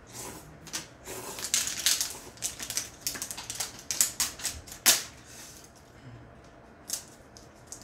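Ramen noodles being slurped and eaten with chopsticks: a quick run of short hissing slurps and small clicks, with one sharp click about five seconds in.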